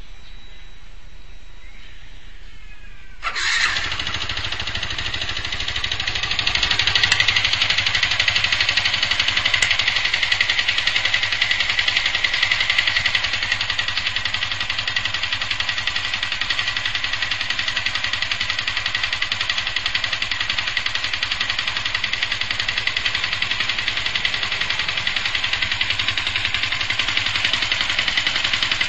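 A Yamaha FZ150i's single-cylinder four-stroke engine starts about three seconds in, is run up for several seconds, then settles to a steady run with a clattering noise. The clatter is the sign of an internal mechanical fault that came back after the engine bearing and primary driven gear were replaced; the owner suspects the valves.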